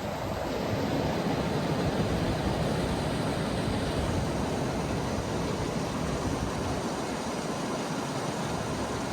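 Steady noise of farm machinery running, mixed with wind, with no distinct knocks or changes in pitch.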